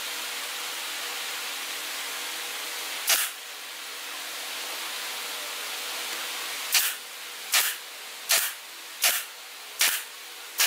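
Pneumatic nail gun firing into a wooden frame to fasten wire mesh, each shot a sharp hiss-and-snap. One shot comes about three seconds in, then a quick run of about six, spaced under a second apart, over a steady background hiss.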